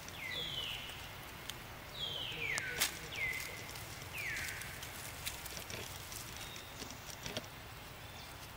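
Long-tailed macaques calling: four short, high calls in the first half, each falling in pitch, with soft clicks of movement in leaf litter.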